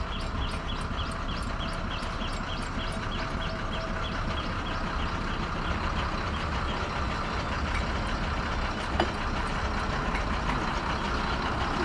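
Ashok Leyland 12-wheel lorry's diesel engine running with a steady low rumble. Over it comes a rapid high ticking, about four a second, through the first few seconds, and a single sharp click about nine seconds in.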